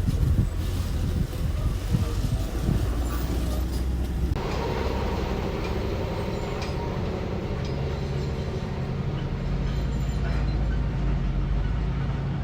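Heavy machinery engine running steadily with a low rumble. The sound changes abruptly about four seconds in.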